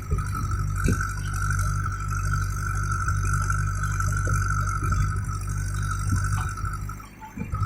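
Diesel engine of a JCB backhoe loader running steadily under a steady high whine, with occasional knocks and rattles. The engine sound drops away briefly near the end, then comes back loud.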